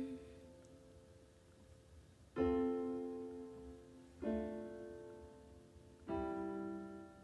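Electronic keyboard playing three slow chords in a piano sound, about two seconds apart, each struck and left to ring and fade before the next.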